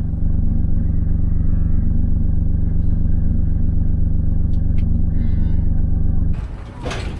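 A vehicle engine running at a steady speed, an even low hum with no revving. It cuts off abruptly about six seconds in.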